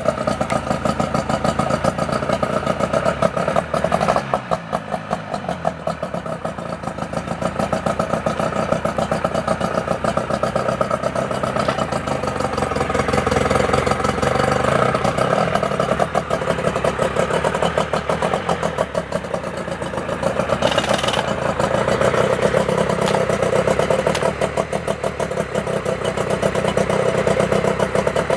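Suzuki DT5 5 hp two-stroke outboard motor running, just after starting, its speed rising and falling a few times.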